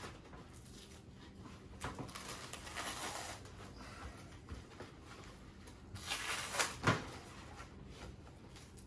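Peel ply being ripped off a freshly cured carbon-fibre layup: two stretches of rough tearing and rustling, the louder one near the end.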